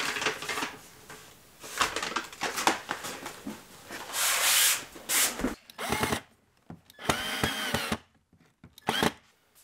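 Paper and plastic rustling with handling clicks, then a cordless drill driving screws into a window-shade mounting bracket in short runs. The motor whine rises and falls with each run, and the longest run lasts about a second near the end.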